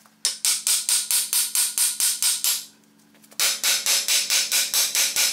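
Hammer rapidly striking the steel steering knuckle of a Dana 44 front axle to knock the ball joint loose, about six blows a second in two runs with a short pause near the middle. The ball joint is stuck and resisting the blows.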